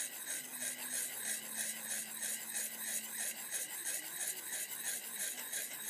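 A sharpening hone rubbed back and forth in quick, even strokes along the chisel-ground steel edge of an Emerson knife, working the edge near the tanto tip.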